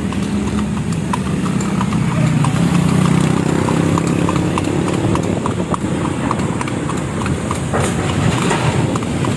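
A kalesa horse's hooves clip-clopping at a steady, even walk on the paved road, a few strikes a second. A vehicle engine rumbles alongside, loudest a couple of seconds in.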